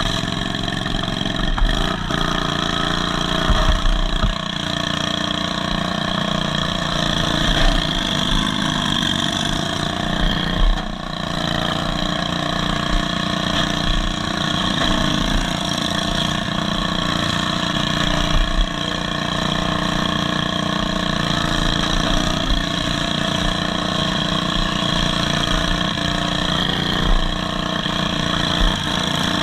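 Riding lawn mower's exposed twin-cylinder engine with two short straight exhaust pipes running loud and steady under the driver, with occasional low thumps as the derby mower is jolted and bumped.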